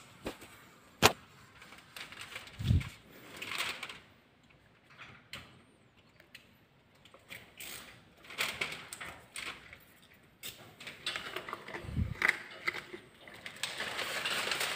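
Hand work on window tint film against a glass pane: scattered sharp clicks, a couple of dull thumps and scraping swishes as the film is worked and trimmed at the edge.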